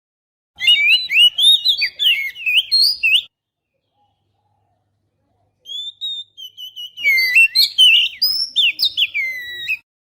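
Oriental magpie-robin song, a lure call: two bouts of fast, varied whistled phrases sliding up and down, with dead silence between them.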